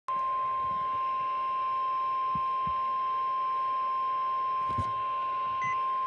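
NOAA Weather Radio 1050 Hz warning alarm tone: a single steady, unbroken high tone played through a Midland weather radio's speaker, sounding at the start of a flash flood warning.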